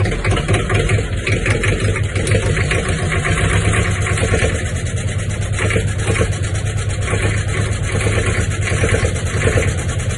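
Vintage Yanmar T-series ('2T/3T') diesel engine running steadily with a fast, even knocking pulse.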